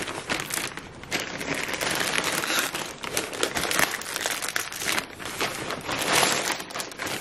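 Plastic mailer bag crinkling and rustling continuously, in dense crackles, as hands reach inside it and handle the cardboard box packed within.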